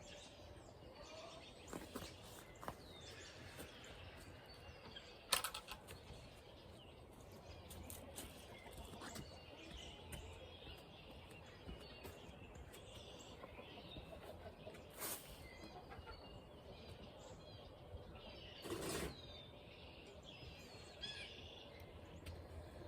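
Faint bird chirps and calls over a low outdoor rumble, with a few sharp clicks and knocks, the loudest about five seconds in and a longer one near the end.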